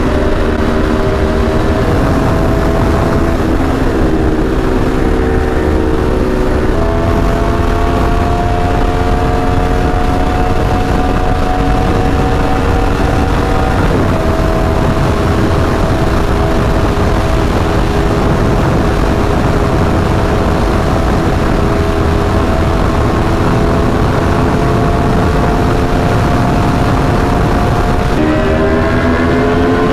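Aprilia Tuono V4 1100's V4 engine pulling at highway speed under heavy wind rush on the microphone, its pitch holding steady with a few small steps and rising near the end.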